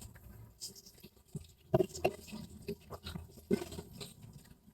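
Light, irregular taps and clicks of kitchen utensils and containers being handled while okra water is prepared, the loudest a few knocks around the middle and near the end.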